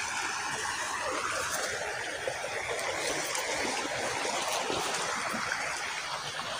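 Shallow, rocky river flowing steadily over stones.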